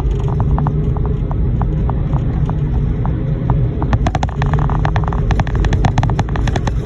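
Concrete mixer truck's diesel engine running, heard from the cab, with a steady low drone. Sharp clicks ride on top, scattered at first and then quicker and louder from about four seconds in.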